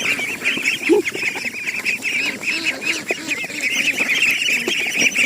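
A flock of ducklings peeping in a dense, continuous chorus of short high chirps, with a few lower calls from grown fowl mixed in.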